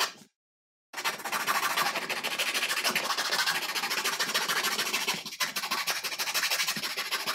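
Hobby knife blade shaving a small wooden rod, carving it round: a steady run of quick scraping strokes, with a short break just after the start.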